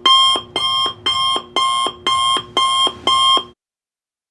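Electronic alarm-clock beeping, the signal that a countdown timer has run out. The beeps are loud and evenly spaced, about two a second, each a short pitched tone, and they stop about three and a half seconds in.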